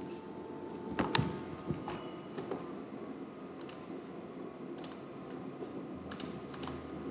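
Several scattered light clicks, irregularly spaced, over a low steady room hum.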